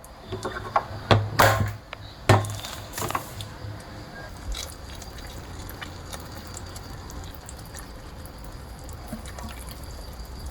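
Kitchenware clinking and knocking a few times in the first three seconds or so, then a faint steady hiss with a low hum.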